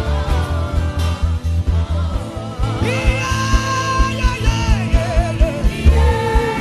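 A man humming a slow worship melody over instrumental accompaniment with a steady, pulsing bass beat; from about three seconds in he holds long, wavering notes.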